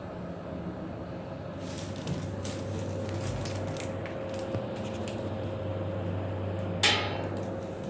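2006 ThyssenKrupp car-park lift running: a steady mechanical hum with a constant higher whine, a scatter of clicks in the first half, and one sharp loud click about seven seconds in.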